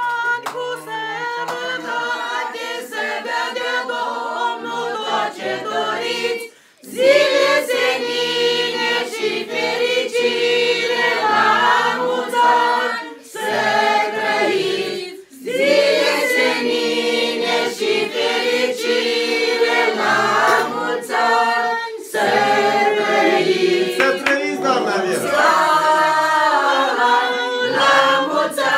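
Unaccompanied singing led by an elderly woman's voice, with other voices joining in. It comes in long sung phrases with short breaks between them.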